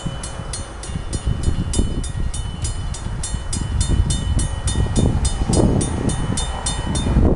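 Railroad crossing bell ringing rapidly, about three strokes a second, over the low rumble of a passing commuter train. The bell cuts off suddenly near the end, as the crossing signal shuts off.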